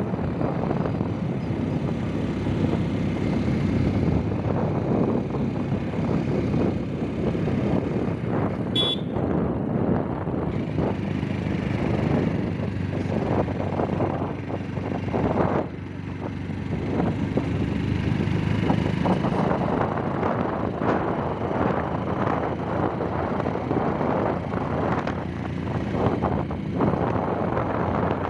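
Motorcycle riding at speed: wind rushing over the microphone mixed with engine and road noise. A short high tone sounds about nine seconds in.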